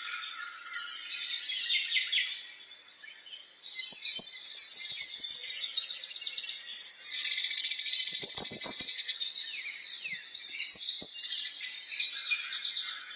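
Many small birds chirping and twittering together, their calls overlapping without a break.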